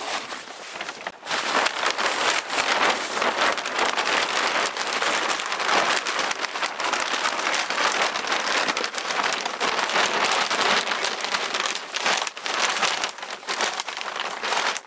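Continuous close crackling and rustling, as of material rubbing right by the microphone, starting about a second in and running loud and unbroken.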